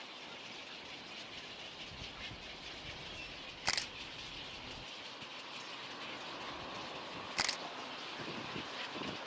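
Two sharp, single camera-shutter clicks about three and a half seconds apart, over a steady outdoor background hiss.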